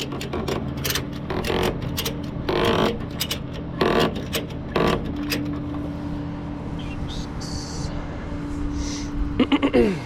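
Metallic clicks and clanks of tie-down strap hardware being worked, most of them in the first five seconds, over the steady hum of an idling vehicle engine. A short squeak falling in pitch comes near the end.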